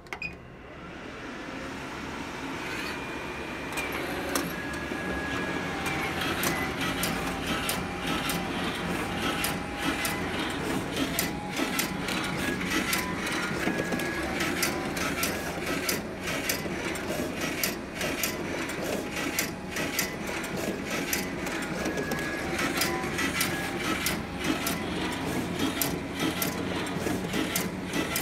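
Duplo DC-645 slitter/cutter/creaser started with a button click, running up over the first few seconds and then running steadily. Many sharp clicks come through as sheets feed through and are cut into card-sized pieces.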